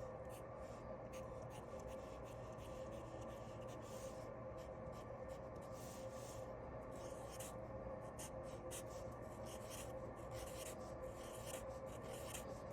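A drawing tool scratching on paper in many quick short strokes, as small patterns are drawn in, over a faint steady hum.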